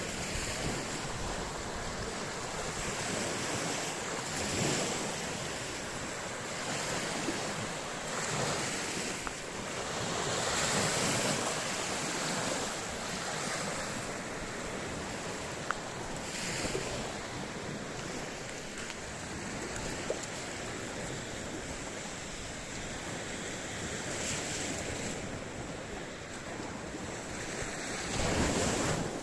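Sea waves washing and breaking on the shore, rising and falling every few seconds, with wind buffeting the microphone.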